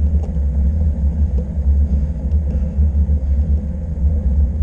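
Steady low rumble of wind buffeting the microphone of a moving camera, fluttering in level, with road noise underneath.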